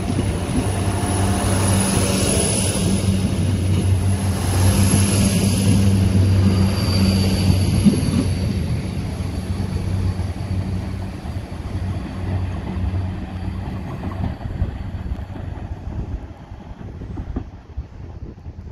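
Class 175 diesel multiple unit pulling away, its underfloor diesel engines running with a steady low hum and a thin high whine. Loudest as it passes, then fading as the train draws off into the distance.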